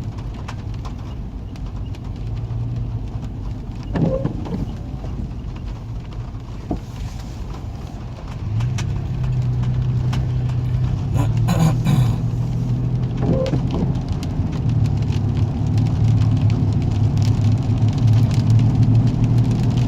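Car engine and road noise heard from inside a moving car: a steady low hum that grows louder about eight and a half seconds in as the car picks up speed, with a few brief knocks and rattles.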